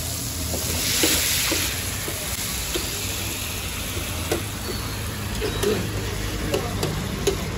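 Mutton liver sizzling on a large flat tawa griddle, with a louder burst of hiss about a second in. A metal spatula clicks and scrapes against the griddle as the liver is stirred, the taps coming more often in the second half, over a steady low rumble.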